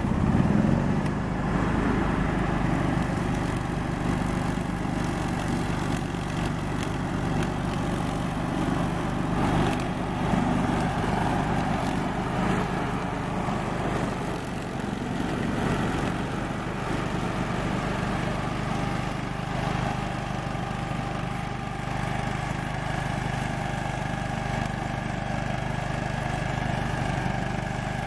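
Grillo Climber 7.13 ride-on mower's engine running steadily while the mower cuts tall, dense grass.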